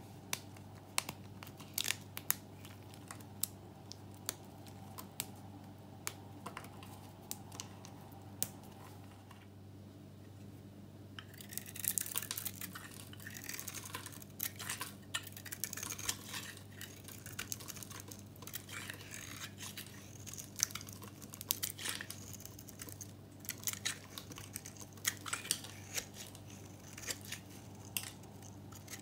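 A knife cutting dry, brittle bar soap. At first there are a few sharp, scattered clicks as chips snap off. From about eleven seconds in, a dense, crisp crackling runs on as thin shavings are carved from a green varnished bar.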